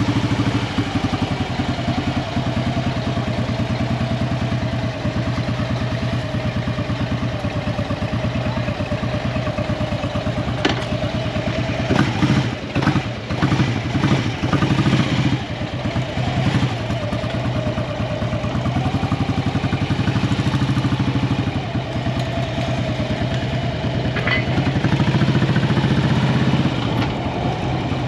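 Motorcycle engine running just after a start, ticking over at first, then pulling away at low speed. It runs unevenly for a few seconds about halfway through as the bike moves off, then settles and picks up a little throttle near the end.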